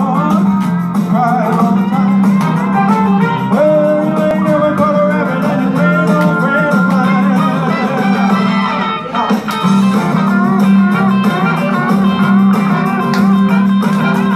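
Rock and roll backing track with guitar, playing continuously through a PA speaker.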